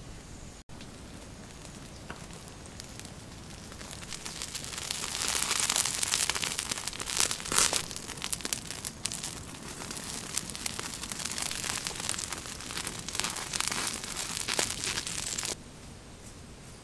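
Chicken hearts sizzling and spitting in hot fat on a stone over a wood fire: a dense crackle of fine pops that builds up about four seconds in and cuts off suddenly near the end.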